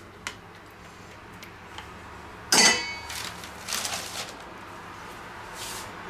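A metal-handled spatula is set down into a stainless steel mixing bowl with one loud clank and a brief metallic ring about two and a half seconds in, then a few lighter clatters as it settles. A small tap comes just before, as it works in the springform pan.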